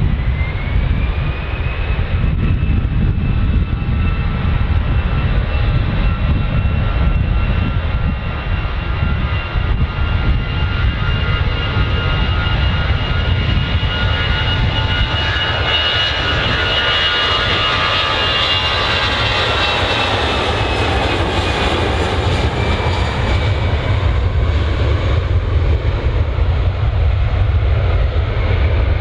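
Airliner engines passing, with a high whine that rises just after the start, grows loudest about two-thirds of the way through, then fades away over a steady low rumble.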